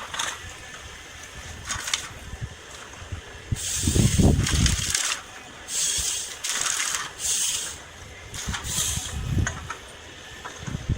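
Forestry machine at work, with several hissing bursts about a second long and a low rumble about four seconds in.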